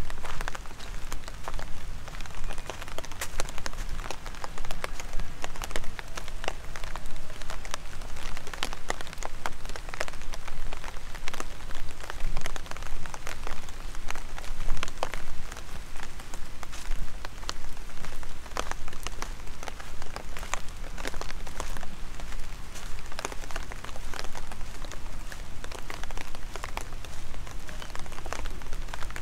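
Rain falling, heard as many sharp, irregular drop ticks over a steady hiss.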